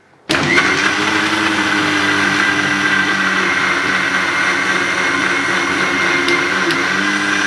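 Electric Butterfly mixer grinder switched on about a third of a second in, then running steadily at speed as it blends mustard oil and eggs into a thick emulsion.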